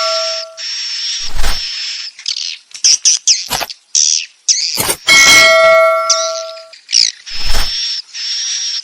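Swiftlet roosting-call lure audio: looped swiftlet chirps and buzzy twitters, high and dense, made to draw swiftlets into a swiftlet house to roost. A bell-like ringing tone sounds at the start and again about five seconds in, and the whole pattern repeats about every six seconds.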